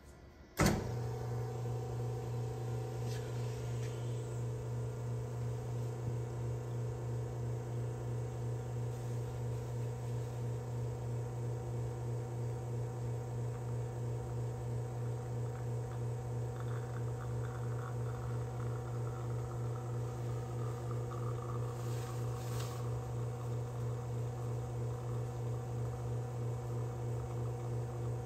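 Espresso machine pump starting with a click and then humming steadily with a fast pulsing buzz while a shot pours into a glass pitcher.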